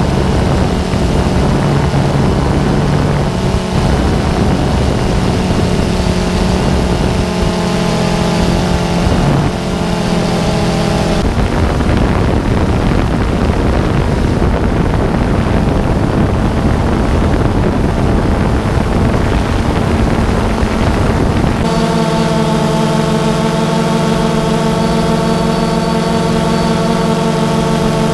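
Small multirotor drone's electric motors and propellers whining steadily, many pitches at once over a rushing noise. The set of pitches changes abruptly about eleven seconds in and again about twenty-two seconds in.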